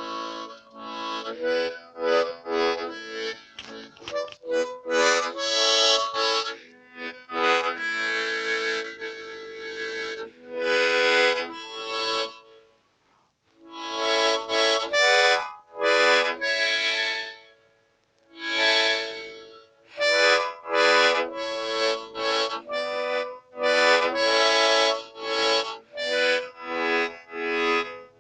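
Reedy instrumental music, like an accordion or harmonica: sustained chords and notes in short phrases, with two brief pauses in the middle.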